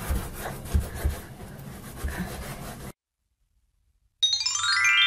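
Soft sponge scrubbing a wet, soapy kitchen cabinet door in repeated strokes, cut off abruptly about three seconds in. After a second of silence, a quick falling run of chime-like notes rings out.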